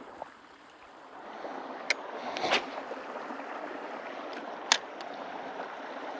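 Steady open-air background hiss by a lake, growing louder about a second in. Over it come a few sharp clicks, around two seconds, two and a half and nearly five seconds in, from a spinning rod and reel being handled for a cast.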